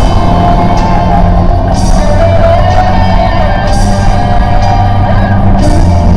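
Loud rock music with singing, over a steady bass line.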